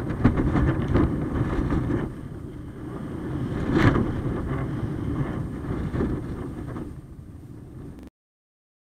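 Wind buffeting the microphone of a camera flying on a kite, a heavy low rumble that swells and dips in gusts, with a sharper gust about four seconds in. It cuts off abruptly near the end.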